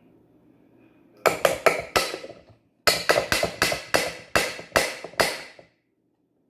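A run of sharp taps or knocks on a hard surface: four quick strikes, a short break, then about seven more at roughly two to three a second.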